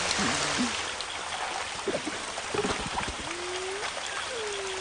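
Cartoon ambience of steady rain and running river water, an even hiss. A few low thuds come around the middle, and two short sliding tones, one rising and one falling, sound near the end.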